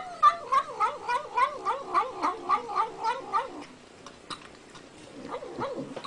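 Domestic cat making a quick run of short, wavering murmured calls while eating, about three or four a second, that sound like "nom nom nom". After about three and a half seconds they die down to fainter calls and a few soft clicks.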